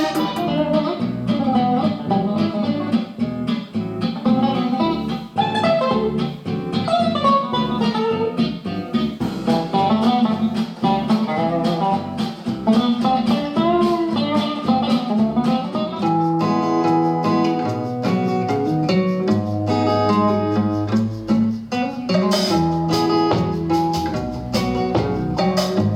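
Guitar-led music played back through the iClever BoostSound BTS08 Bluetooth speaker as a sound test. Plucked melody lines run over a steady bass, and from about halfway through longer held low notes take over.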